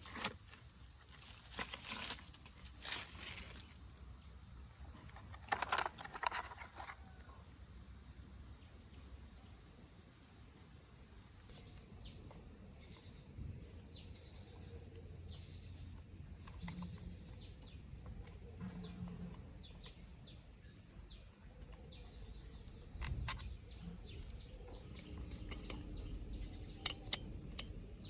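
Insects keep up a steady high-pitched drone, with a few sharp clicks and knocks here and there, bunched in the first few seconds and again near the end.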